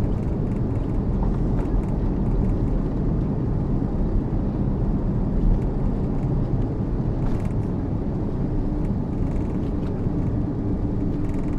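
Steady low rumble of cabin noise inside a four-engined Airbus A340-600 in flight, the engines and airflow merging into one even roar. A faint steady hum joins in about eight seconds in.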